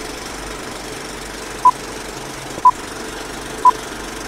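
Old film-leader countdown sound effect: a steady film projector clatter with a short high beep once a second, three beeps in all, the first about a second and a half in.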